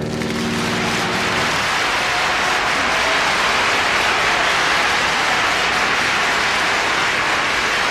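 Large concert-hall audience applauding, a dense, even clapping that holds steady after the final piano chord of the etude dies away in the first second or so.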